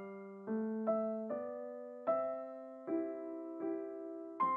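Background piano music: a slow melody of single notes, each struck and left to fade.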